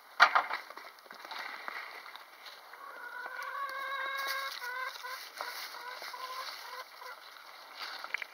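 Farmyard animal calls: a loud sharp sound about a quarter second in, then from about three seconds a run of drawn-out, steady-pitched calls lasting a few seconds.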